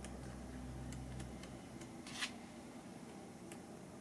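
Sheets of a scrapbook paper pad turned by hand: a brief paper rustle about two seconds in, among a few faint light ticks.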